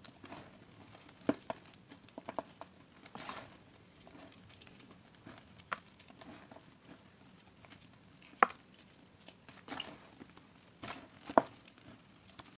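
Pieces of gym chalk crunching and crumbling between fingers over a pile of chalk powder: a handful of sharp, crisp cracks, the loudest two late on, with soft powdery rustling between.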